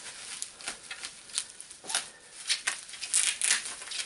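Clear plastic bubble wrap crinkling and rustling in irregular crackles as it is pulled and torn off a box.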